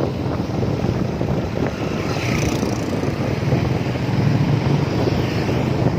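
A vehicle's engine running steadily on the move, with road and wind noise.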